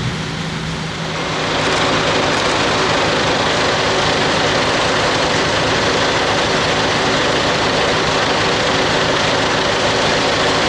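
An engine running steadily, growing louder about a second and a half in and then holding at that level.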